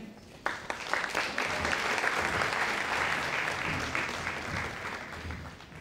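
Audience applauding. The clapping starts about half a second in, builds, and dies away toward the end.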